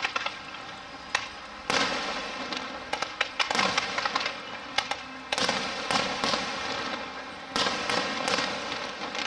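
Aerial fireworks going off: sharp bangs followed by dense crackling, in three volleys starting about two seconds in, about five seconds in and past seven seconds.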